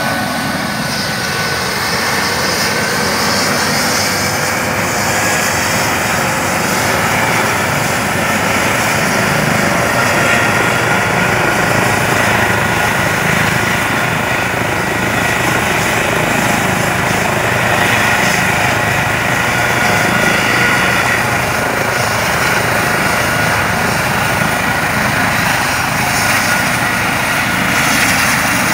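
Eurocopter EC135 air-ambulance helicopter running on the ground with its rotor turning: a steady turbine whine over the rotor noise. The whine grows stronger about a third of the way in.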